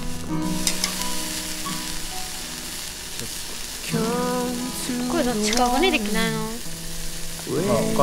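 Slices of raw beef sizzling as they are laid on a hot stainless-steel grill grate, a steady high hiss that starts just after the first slice goes down. Background music runs under it, with a sung melody coming in about four seconds in.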